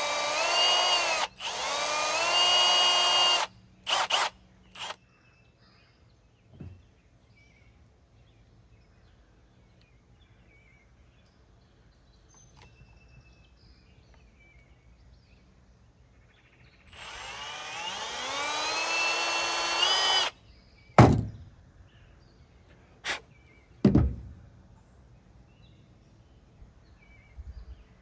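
Power drill with a step bit spinning up and running in a few trigger pulls, enlarging a circular saw blade's arbor hole. There is a short run and two brief blips at first, then a quiet gap, then one longer run. Three sharp knocks follow near the end.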